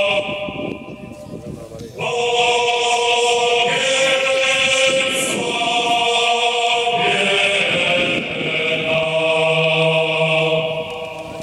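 Choir of voices chanting a slow hymn in long held notes. A phrase ends just after the start, the singing resumes about two seconds in, and it tails off again near the end.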